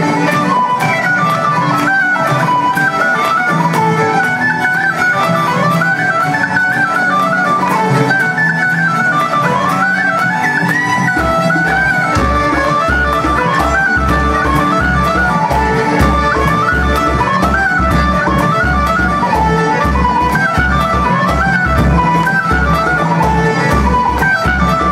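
Live Irish traditional tune played by a large ensemble of fiddles, button accordions, acoustic guitars and flute, with a bodhrán. A steady low drum beat comes in about halfway through.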